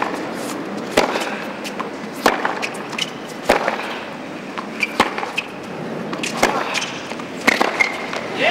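Tennis rally on a hard court: the ball is struck by rackets and bounces on the court in sharp knocks, roughly one every second or so, over steady background noise.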